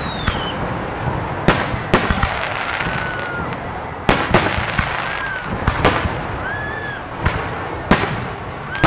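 Aerial firework shells bursting in a string of sharp bangs, about ten in all, some coming in quick pairs, during a fireworks display.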